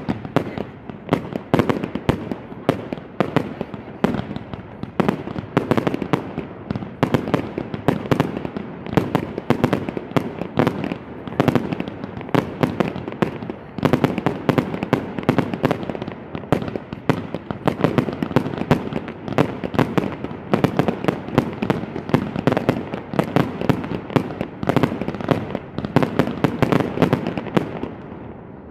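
Fireworks display in a continuous barrage: aerial shells and ground-launched effects going off, several sharp bangs a second without a break.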